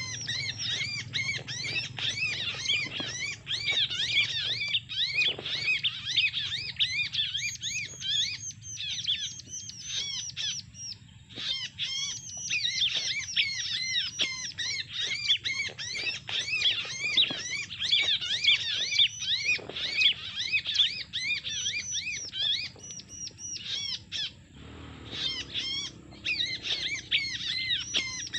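Bar-winged prinia (ciblek) calls used as a bird-trapping lure: rapid, continuous high chirps, many a second, with a brief break about 24 seconds in.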